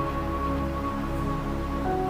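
Background music: soft sustained synthesizer notes and chords changing every second or so.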